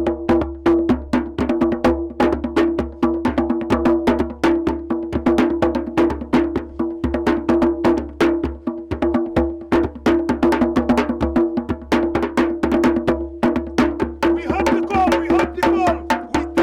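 Drumming with a sharp, wood-block-like percussion part: fast, even strikes, several a second, over a steady low sustained tone. Wavering voice-like sounds join near the end.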